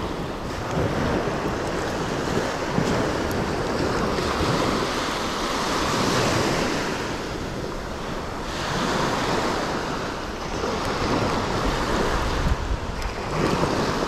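Small surf waves washing up the sand and draining back, swelling and easing every few seconds, with wind rumbling on the microphone.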